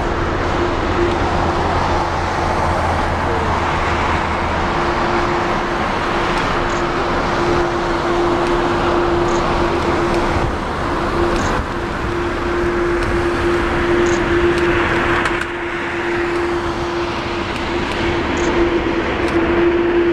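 Jet engine roar of a Boeing 777-300ER's GE90 engines at takeoff thrust, steady and loud with a constant hum running through it, as the airliner rolls down the runway and lifts off.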